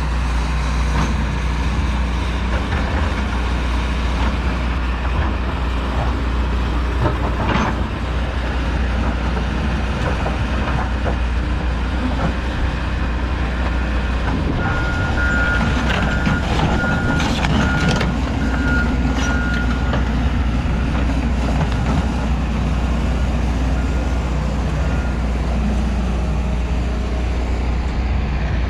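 Excavator's diesel engine running steadily under digging load, with scattered knocks and scrapes from the bucket working the ground. A high beeping sounds in short pulses for several seconds around the middle.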